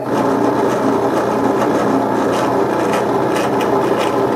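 Benchtop drill press running steadily, a number 27 bit drilling the hole for tapping an 8-32 thread through the egg beater's bottom plate.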